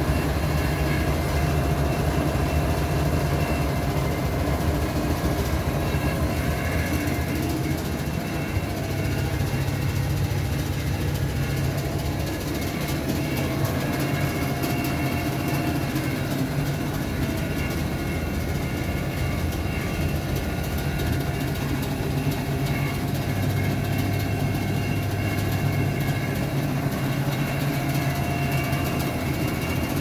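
Front-loading washing machines running a wash, the Miele DeLuxe W432's drum turning with suds in it: a steady motor hum over a noisy wash, the low hum shifting in pitch every several seconds.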